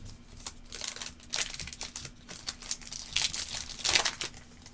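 Trading-card pack wrapper being torn open and crinkled, with irregular crackling handling sounds over a faint steady hum.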